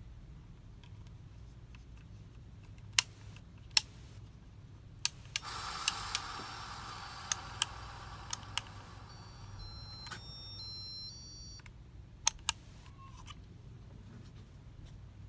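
A string of sharp clicks, with a rough whirring that comes in about five seconds in and fades out about eleven seconds in, over a low steady hum.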